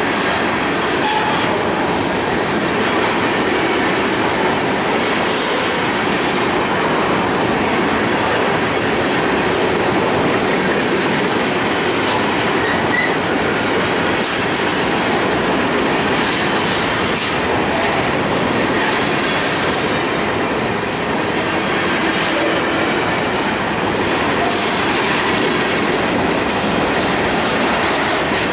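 Freight train's covered hopper cars rolling past close by: a steady rumble of steel wheels on the rails with clickety-clack over the rail joints.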